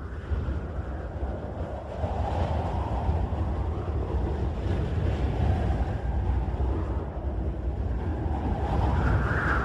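Howling wind ambience: gusts swell and fade every few seconds over a deep, steady rumble, with no instruments yet.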